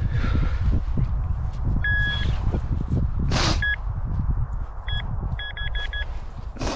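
A metal-detecting pinpointer probing a dug hole gives two-tone electronic beeps: a short held beep about two seconds in, single beeps after it, then a quick run of about five beeps near the end, the sign of a metal target in the soil. Wind rumbles on the microphone underneath, with a scrape of soil about three and a half seconds in.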